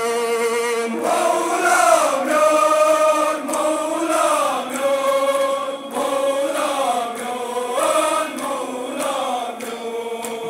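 A group of men chanting a Kashmiri noha, a Shia Muharram lament, in long drawn-out melodic phrases.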